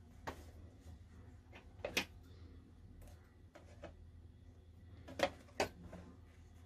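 Quiet handling at a sewing table: scattered soft clicks and taps over a low steady hum, one sharper tap about two seconds in and two more close together about five seconds in.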